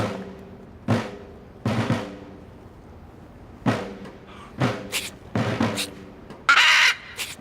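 Film score: about seven heavy drum hits, spaced unevenly, each ringing out over a held low chord. The loudest, brightest hit comes near the end.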